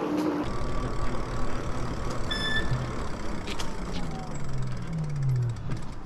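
E-bike riding noise: a steady rumble of tyres and wind on the microphone. A short electronic beep sounds about two seconds in. Near the end a low hum falls in pitch as the bike slows to a stop.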